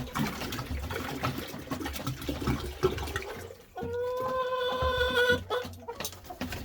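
Water pouring from a 5-gallon jug into a poultry waterer, splashing and trickling. About four seconds in, it gives way to a steady pitched note lasting about a second and a half.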